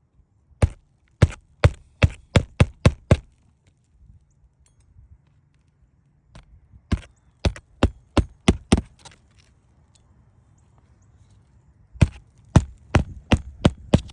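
Hammer driving roofing nails into a new 3-tab shingle: three runs of quick strikes, about three a second, each run setting a nail.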